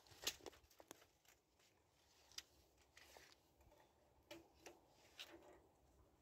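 Faint clicks and rattles of a tape measure as its metal blade is pulled out and laid along a wooden beam, a few separate ticks spread through, the sharpest just at the start.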